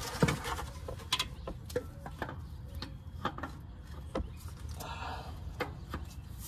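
Scattered light clicks and knocks of a harmonic balancer being handled and fitted back onto the crankshaft nose, with a brief scrape about five seconds in, over a steady low hum.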